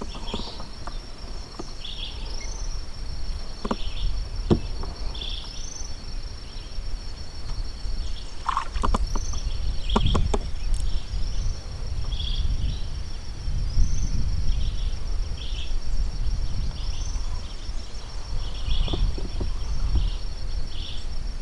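Wind rumbling on the microphone, with a steady high insect drone and a short call repeating every second or two. A few sharp clicks and knocks come about four seconds in and again around nine to ten seconds.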